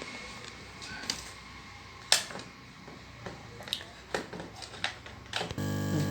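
Scattered light clicks and taps from small parts and tools being handled on a workbench, with one sharper tap about two seconds in. Near the end a steady electrical hum starts abruptly.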